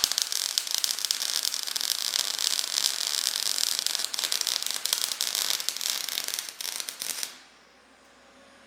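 MIG welder arc crackling steadily as a bead is laid on the cracked steel windshield frame of a 1946 Willys CJ-2A, stopping about seven seconds in.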